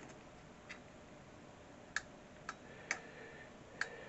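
A few light, sharp metallic clicks at uneven intervals as a cap-head screw with a large washer is handled and started by hand into the threaded insert of a P90/PS90 stock. Some of the clicks ring briefly.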